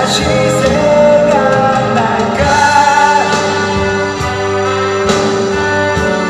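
Recorded music played back through a large horn-loudspeaker hi-fi system and picked up in the room: a Korean ballad with a male singer holding and gliding through long sung notes over a steady accompaniment.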